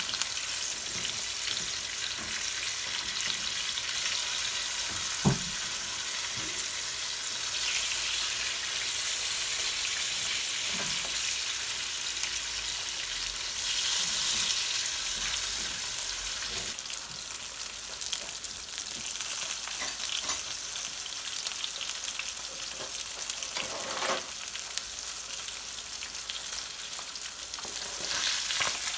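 Food sizzling and frying in a pan, with a few short knocks of stirring utensils against it, the sharpest about five seconds in.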